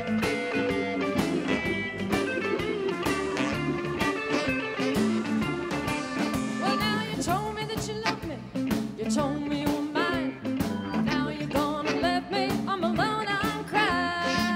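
Live blues-rock band playing: a Stratocaster-style electric guitar over a drum kit. From about halfway through, lead notes bend and waver in pitch.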